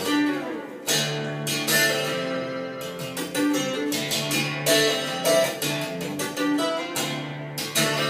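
Guitar music with plucked notes, played through a pair of Ruark Broadsword bookshelf loudspeakers in a room and picked up by a phone's microphone.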